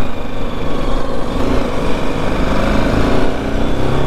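BMW G 310 GS's single-cylinder engine running under way, its pitch climbing slowly as the bike gathers speed, with wind rumble on the helmet microphone.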